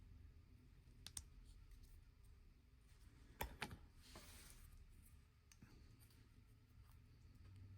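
A few light clicks of small hard watch parts being handled: one about a second in and two close together near the middle, followed by a brief soft rustle, over near silence.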